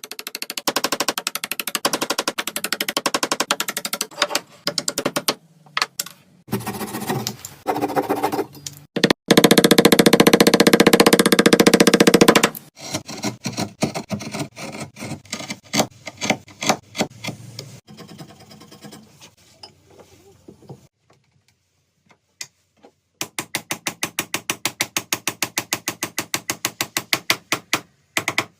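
Woodworking tool sounds: fast, regular strokes of a tool working wood, in several separate runs, loudest and most continuous for a few seconds near the middle, with a short quiet gap before a final steady run of strokes.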